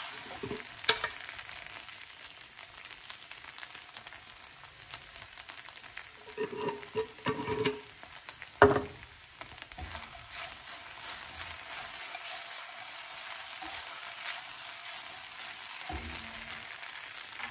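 Soaked sabudana (tapioca pearls) frying with a steady sizzle in a nonstick pan as a silicone spatula stirs it. Short scrapes and knocks of the spatula on the pan come and go, the loudest a sharp knock about halfway through.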